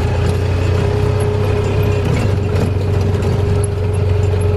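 Side-by-side utility vehicle's engine running steadily while driving along a rough farm track. It gives a deep, even drone with a constant whine above it and faint clicks and rattles.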